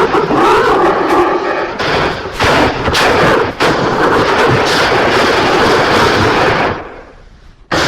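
Logo jingle run through a heavy distortion effect chain: loud, harsh and noisy, with gliding pitched tones early on and a few brief dropouts. It sinks quieter near the end, then cuts back in abruptly at full loudness.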